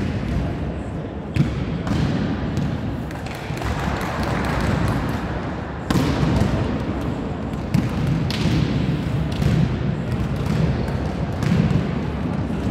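Several volleyballs being struck and bouncing on the court floor, giving irregular overlapping thuds and slaps that ring in a large sports hall.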